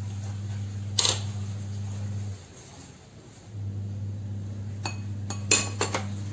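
Kitchenware clinks: a sharp knock about a second in, then a few clinks near the end as a spoon meets the plastic mixing bowl of bread cubes and egg. Under them runs a steady low hum that drops out for about a second midway.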